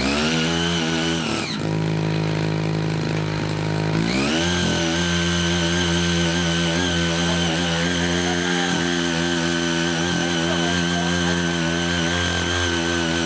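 Small petrol engine of a CY80 mini walk-behind power tiller. It revs up, falls back to idle for a couple of seconds, then revs up again about four seconds in and runs steadily at high speed while the rotary tines churn through the soil.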